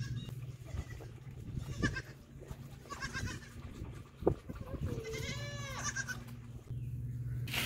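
Goat kids bleating: a few short bleats, then one longer wavering bleat about five seconds in, with a sharp knock a little before it. A steady low hum runs underneath.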